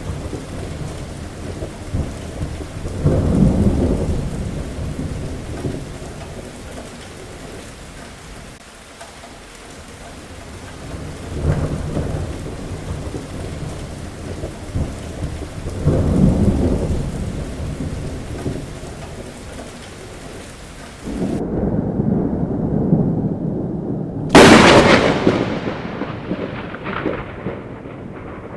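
Heavy rain falling steadily, with several low rolls of thunder swelling and fading. Near the end the rain hiss drops away and a sharp, close thunderclap cracks out, the loudest sound, then rumbles off over a few seconds.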